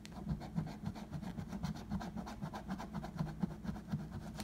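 A coin scraped rapidly back and forth over a lottery scratch-off ticket, rubbing off the scratch coating in quick strokes, several a second.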